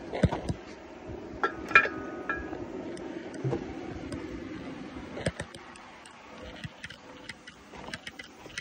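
Handling noise from a phone being carried and moved about, with scattered clicks and knocks. A sharp knock with a short ring comes about two seconds in.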